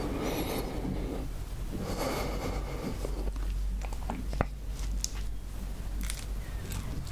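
Close-miked handling of food on a board: a steady low hum with two soft rushes of noise in the first two seconds, then light clicks and taps from about three and a half seconds in as fingers touch an aloe leaf and pick at soft white balls.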